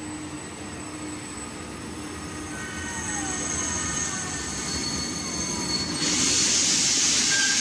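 ČD class 362 electric locomotive hauling passenger coaches along the platform, its rumble growing as it nears. High thin squeals from the wheels and brakes set in partway through. A loud hiss starts about six seconds in as the locomotive draws level, then cuts off suddenly.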